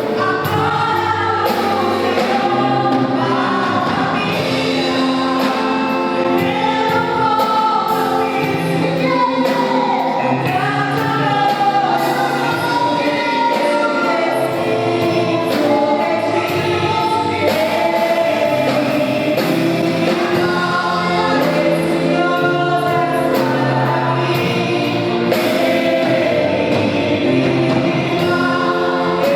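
Gospel worship song: a choir singing with a band, the drums keeping a steady beat.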